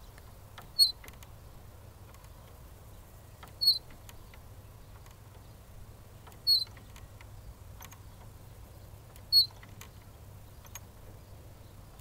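Playground swing squeaking as it swings: four short high squeaks about three seconds apart, one on each swing of the seat. Faint clicks sound between the squeaks.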